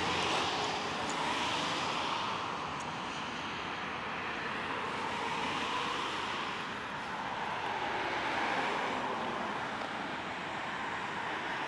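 Street traffic noise: vehicles passing, the sound swelling and fading every few seconds.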